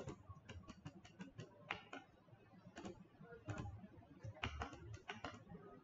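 Faint, irregular clicking of a computer keyboard and mouse, in quick runs of several clicks with short pauses between.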